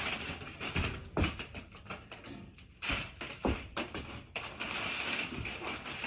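Handling noise: rustling and crinkling with several irregular dull knocks and thumps as objects are moved about.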